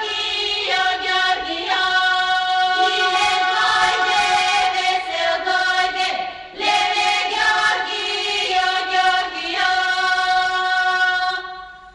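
Children's choir singing a Bulgarian folk song in unison, in long held phrases with short pauses about two and six and a half seconds in. The singing stops shortly before the end.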